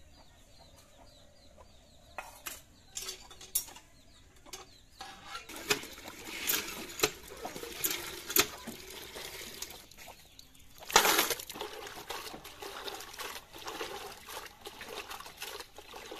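Cast-iron hand pump being worked: sharp clanks of the handle, then water gushing from the spout into a steel pot, with one louder burst about eleven seconds in.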